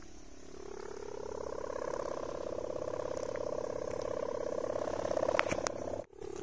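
Sendaren, the bowed hummer on a giant Javanese kite, droning in the wind with a fast, pulsing buzz of the 'ngorok' (snoring) type. It swells about half a second in and cuts off suddenly near the end.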